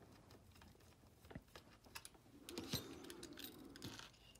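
Faint scattered clicks and light handling noise of small metal and plastic parts: a screw being backed out of a model locomotive's pickup shoe with a small screwdriver, and the parts lifted away.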